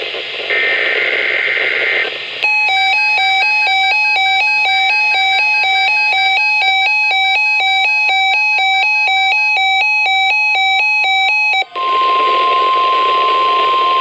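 Emergency Alert System broadcast over NOAA Weather Radio with static. First the last burst of the SAME data header, then a weather alert receiver's alarm beeping in a fast two-tone warble for about nine seconds. Near the end comes the steady 1050 Hz weather radio alert tone.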